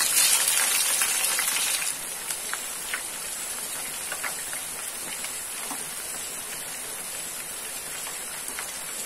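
Green capsicum strips deep-frying in hot oil in a pan: loud sizzling that eases about two seconds in to a steady sizzle with scattered crackles.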